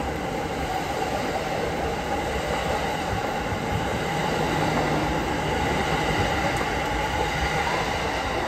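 Cars of the E26 series Cassiopeia sleeper train rolling past along a station platform: steady wheel-on-rail running noise with a faint high squeal from the wheels, a little louder midway.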